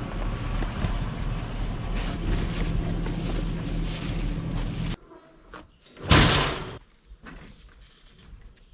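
A vehicle engine running steadily with a low drone, which stops abruptly about five seconds in. About a second later there is one loud bang, like a door slamming, followed by a few faint knocks.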